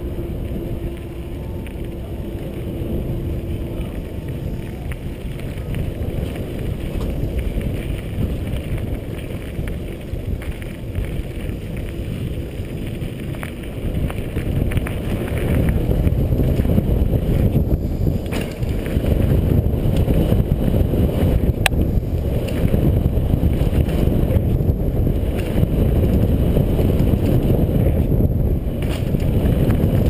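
Wind buffeting a helmet-mounted camera microphone over the rumble of a downhill mountain bike's tyres on dirt and gravel, with scattered small knocks and rattles. The noise grows louder about halfway through.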